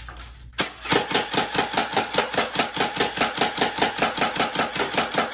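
GameFace Battlemaster electric AK-47 airsoft rifle firing semi-auto: a single shot about half a second in, then rapid trigger-pulled shots at about six a second. The BBs strike a cardboard box target.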